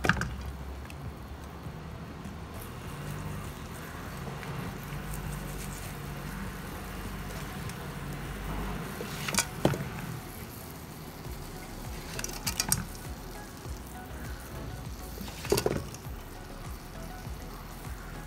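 A spatula stirs kuih keria through hot, thickened gula melaka syrup in a pan, with a soft sizzle of the bubbling sugar coating. Three sharp knocks of the spatula against the pan come in the second half. Background music runs underneath.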